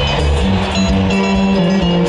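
Band music with guitar, playing continuously.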